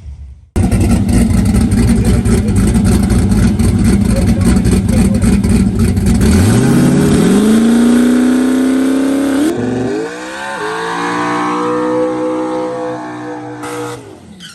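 Turbocharged 5.3 LS V8 drag car held at high revs with a rapid crackle, then launching: the engine note climbs steadily in pitch, steps up again at a gear change about ten seconds in and keeps rising as the sound fades a little, then cuts off suddenly near the end.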